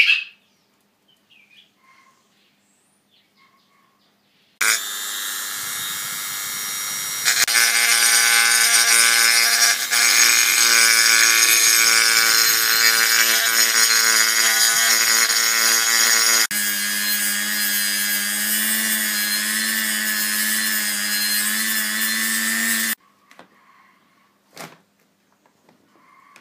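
Hand-held rotary tool grinding inside the metal outlet of a Sea-Doo supercharger housing, its motor running with a steady whine. The tool starts about four seconds in, gets louder a few seconds later, changes note and drops in level about halfway through, and cuts off a few seconds before the end.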